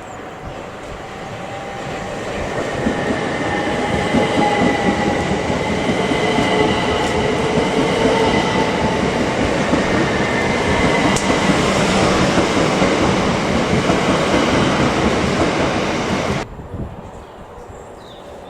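A train running through on the rails, its noise building over the first few seconds and then holding steady with a faint high whine over the rumble. It cuts off abruptly near the end.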